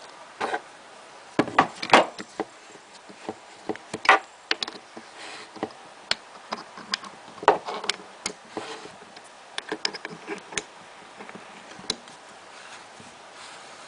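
Irregular clicks and light knocks from the parts of a Smart Parts Vibe paintball marker being handled and screwed back together, a few louder knocks among many small ticks.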